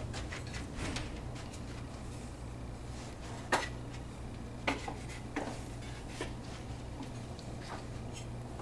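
Light wooden knocks and clacks as the rails and legs of a wooden table frame are handled and shifted into line, three sharper knocks standing out in the middle, over a steady low hum.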